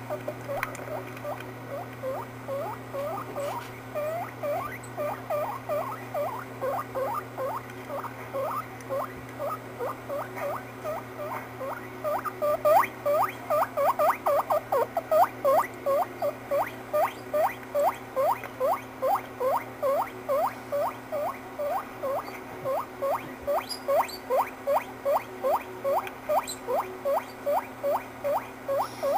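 Guinea pig squeaking over and over in short rising squeaks, about two to three a second, growing louder from about twelve seconds in.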